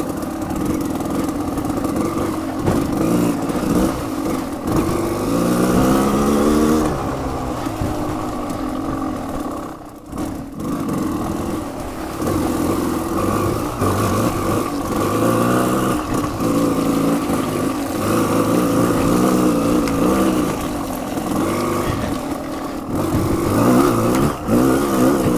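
Off-road motorcycle engine revving up and down as it is ridden through slick mud, its pitch rising and falling with the throttle. The engine drops off briefly about ten seconds in, then picks up again.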